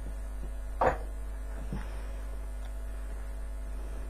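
A short knock of handling noise about a second in, then a fainter one, over a steady low electrical hum.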